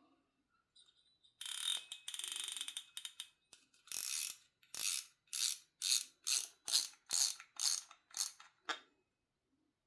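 Daiwa BG MQ 10000-H spinning reel's mechanism ratcheting: a continuous clicking buzz for about two seconds, then about ten short ratcheting bursts, roughly two a second.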